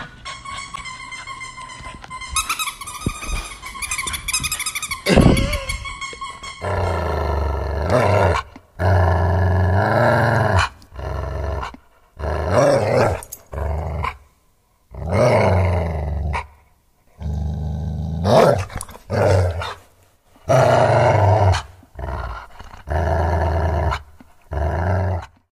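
American Bully puppy whining and yipping in high, wavering tones, then growling in a series of deep bursts of a second or two each while it tugs on a toy.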